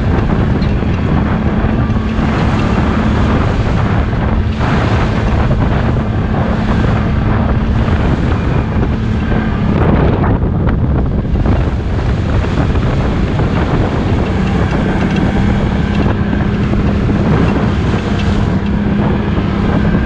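ATV engine running steadily while riding, with heavy wind buffeting on the microphone.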